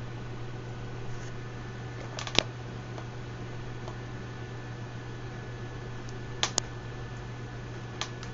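Steady low hum with a few short, sharp clicks: a pair about two seconds in, another pair a little past six seconds, and a single click near the end.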